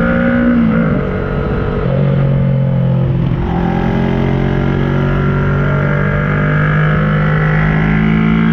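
The parallel-twin engine of a 2010 Kawasaki ER-6n, running through an SC Project carbon exhaust with the dB-killer fitted, while the bike is ridden. Its note drops about a second in, dips briefly around three seconds, then holds fairly steady and climbs slightly near the end.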